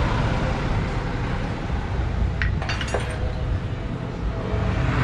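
A few light metallic clinks about two and a half seconds in, as fork parts and seals are handled, over a steady low background rumble.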